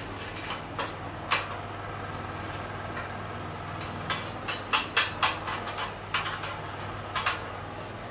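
Sharp metallic clicks and knocks from handling and fitting parts of a steel sewing machine table stand: two in the first second and a half, then a quick cluster of about ten from about four seconds in, over a steady low hum.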